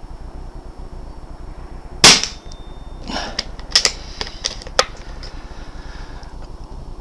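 BSA R10 pre-charged pneumatic air rifle firing one shot: a sharp crack about two seconds in. It is followed by a run of quieter, sharp clicks over the next three seconds.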